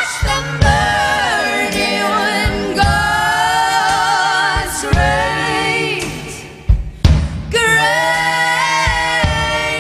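Women's voices singing live in close multi-part harmony, holding long chords that bend together, with low thumps now and then underneath.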